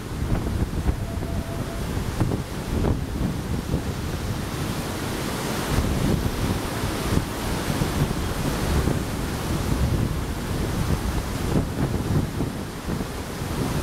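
Strong typhoon wind buffeting the microphone in irregular gusts, over the steady rush of a swollen river in flood torrent.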